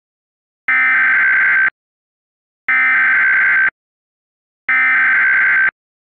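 Emergency Alert System SAME header data: three screeching digital bursts of about a second each, a second apart, the warbling two-tone data that opens an alert message.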